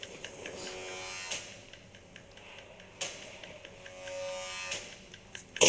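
Quiet background score from a film trailer: sustained held tones, with a soft hit about three seconds in.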